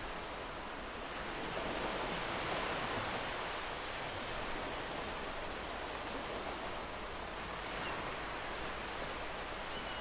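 Small ocean waves breaking and washing up a sandy beach: a steady surf hiss that swells slightly a couple of seconds in.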